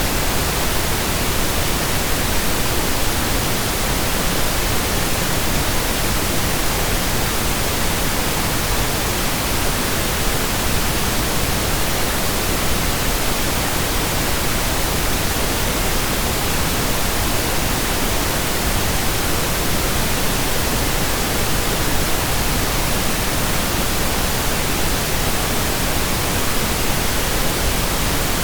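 Steady synthetic pink noise: an even, unchanging hiss across the whole range of pitch, without a break.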